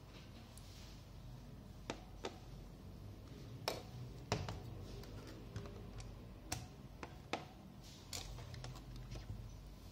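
Faint handling noise of small plastic items on a tabletop: a capped glass sample cuvette and syringes clicking and tapping as they are turned over, set down and moved, about eight scattered light clicks.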